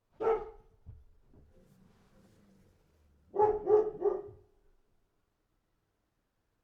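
A dog barking: one bark, then a quick run of three barks about three seconds later.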